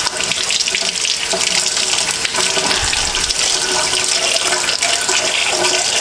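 Kitchen faucet running steadily into a sink, the stream splashing as hands rinse out the basin.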